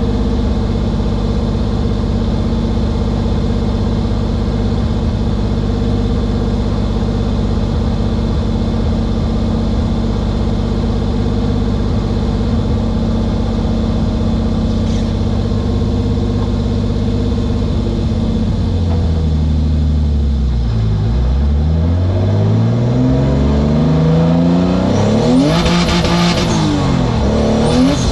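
BMW S50 straight-six in an E36 idling steadily, heard from inside the stripped cabin; about two-thirds of the way through the car pulls away and the engine note climbs as it accelerates, loudest near the end.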